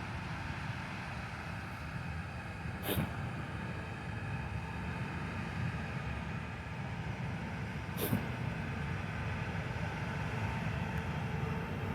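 Steady low engine rumble with two brief sharp clicks, about three and eight seconds in.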